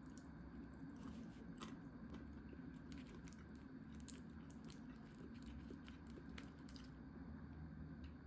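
Faint eating sounds: a string of small clicks and crunches of chewing over a low steady hum.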